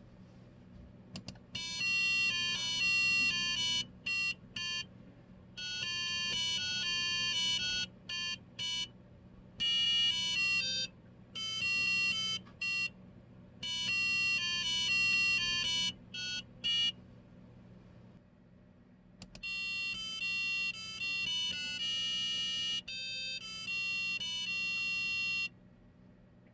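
Electronic buzzer block playing a children's song melody as a string of buzzy beep notes in short phrases. About two-thirds through there is a pause of about two seconds before a second passage of notes.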